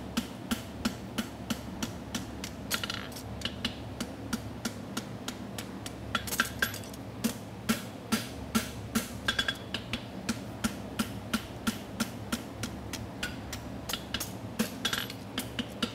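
Farrier's hand hammer striking a red-hot steel horseshoe bar on an anvil in an even run of blows, about three a second, forging the bevel on the shoe's branch. The steady buzz of a Portacool evaporative cooler fan runs underneath.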